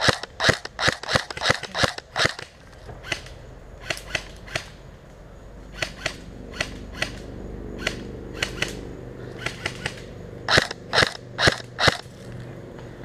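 Airsoft electric rifle firing shot by shot in quick strings of sharp cracks, about three a second: a loud run at the start and another of about five shots near the end. Fainter single shots from other airsoft guns pop in between.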